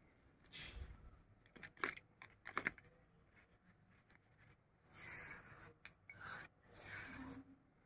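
Faint crackling and scraping of potting mix as fingers press and firm it around a plant in a plastic pot, in several short bursts.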